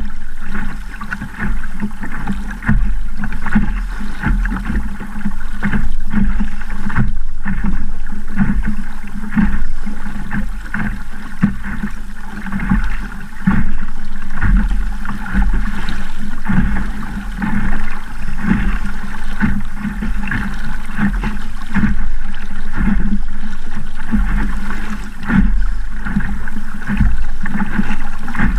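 Small Sabot sailing dinghy driving through choppy water: waves slapping and splashing against the hull, with wind buffeting the microphone in an uneven, surging rumble.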